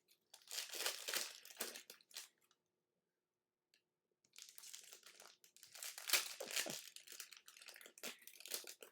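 Crinkling and rustling of plastic card-pack wrappers and trading cards being handled, in two spells with a quiet gap of nearly two seconds in the middle.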